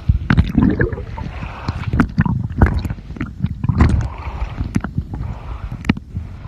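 Sea water sloshing and splashing around the microphone, with irregular knocks and thumps and a low rumble.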